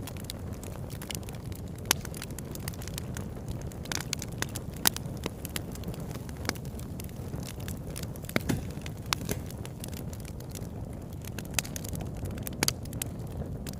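Wood campfire burning, with frequent sharp crackles and pops over a steady low rushing sound; a few louder pops stand out, about two seconds in, near five seconds, and near the end.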